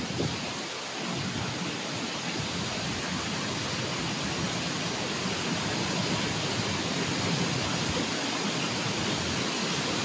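Steady rushing of water: a shallow stream running fast over stones, with a waterfall close ahead.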